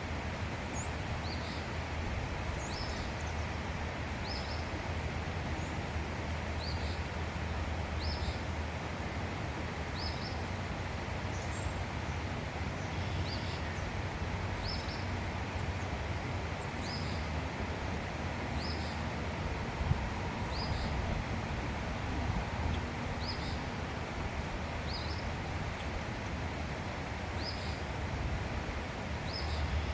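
A small songbird repeating one short, high chirp about every one and a half to two seconds, over a steady outdoor rumble.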